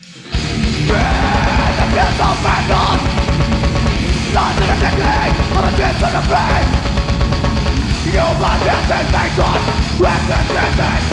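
A heavy metal band playing live. The full band crashes in suddenly just after the start with loud, dense distorted guitars and pounding drums, and shouted vocals over the top.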